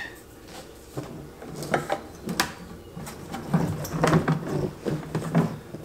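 Hollow plastic clicks and knocks as a feeder made of a white plastic bucket on PVC-pipe legs is handled and tipped over on a table, with a few sharp knocks in the first half and lower rubbing and clunking after that.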